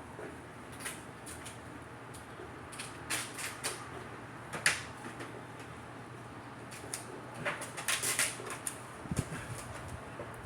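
Scattered, irregular light clicks and knocks of hand work on sheet metal and tools, with a cluster of them about eight seconds in, over a steady low hum.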